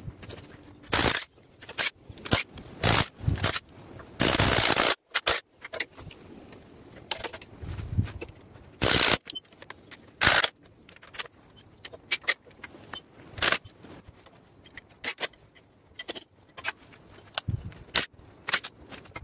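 Hand tools and metal fittings clanking and rattling against the forklift's hydraulic hose connections as a hose is worked loose, in irregular sharp knocks and short scrapes, with one longer rattling burst about four seconds in.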